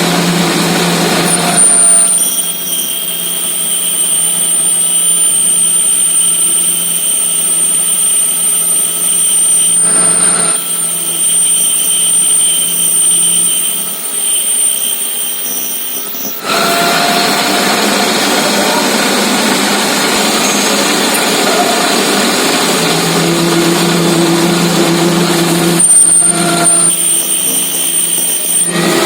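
Metal lathe running: a steady machine hum with a high whine over it. The sound changes abruptly a few times.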